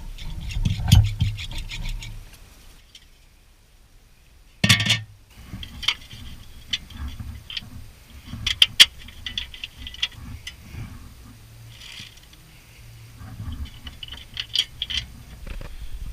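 Scattered metal clicks and clinks from hand tools and bolts working on a car's wheel hub, with one loud knock about five seconds in.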